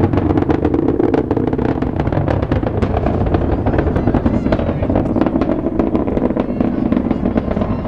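Space Shuttle climbing on its solid rocket boosters and main engines: a loud, steady low rumble shot through with dense crackling.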